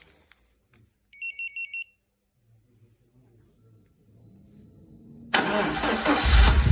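Four short electronic beeps, then a VAZ 16-valve engine cranks and starts about five seconds in and runs loudly. This is the freshly rebuilt engine that the owner says knocks after its overhaul.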